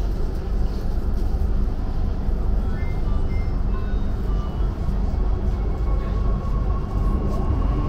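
Steady low rumble of a metro train. Partway through comes a short run of high notes at changing pitches, and near the end a steady high tone sets in.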